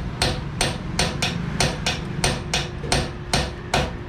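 Hammer blows struck at a steady, quick rhythm, about three a second, each with a short ringing tail, as parts of an old sewing machine are worked on.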